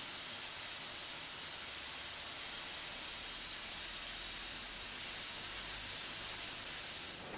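Oxy-fuel cutting torches hissing steadily as their oxygen jets cut through thick steel plate.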